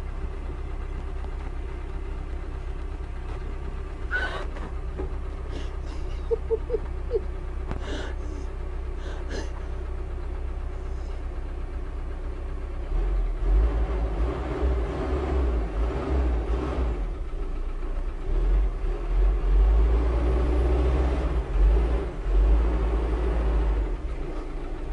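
A wheel loader's engine running steadily, with a few sharp knocks early on. About halfway it turns into a much louder, uneven deep rumble.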